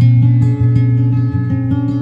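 Background music: acoustic guitar played in steady plucked notes over a bass line.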